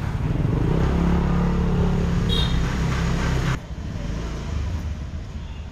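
Street traffic: a motor vehicle's engine runs loud and close with a steady low hum, and a short high tone sounds about two seconds in. About three and a half seconds in, the sound drops abruptly to quieter traffic noise.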